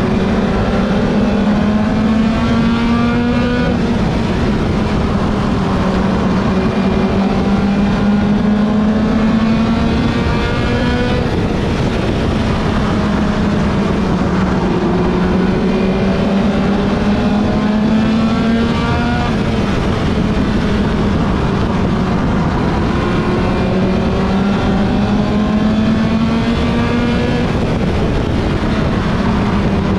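Mini stock race car's engine running at full race pace, heard from on board. Its note climbs steadily on each straight and drops back as the driver lifts for the corners, about every eight to nine seconds, over steady road and wind noise.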